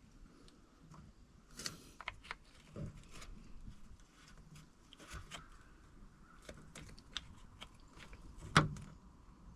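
Scattered light clicks and knocks of tools and metal hardware being handled during battery switch wiring, with one sharper knock about eight and a half seconds in.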